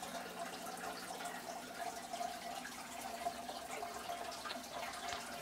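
Water trickling and dripping steadily in an indoor goldfish aquarium, with a faint steady hum underneath.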